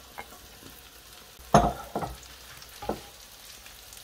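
Stainless steel frying pan holding sliced onions in olive oil knocking down onto the stovetop about one and a half seconds in, with a lighter knock a little over a second later, over a faint steady hiss.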